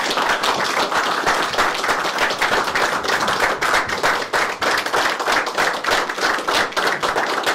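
A small group of people applauding: many hands clapping in a dense, steady patter.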